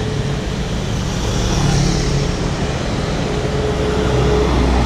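Road traffic going by: the steady rumble of passing cars, vans and motorcycles, with a single engine hum standing out for about a second near the end.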